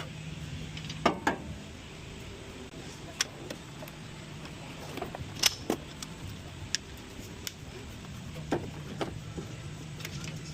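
Scattered metallic clicks and clinks of tools and brake parts being handled, over a steady low hum that stops about a second in and comes back near the end.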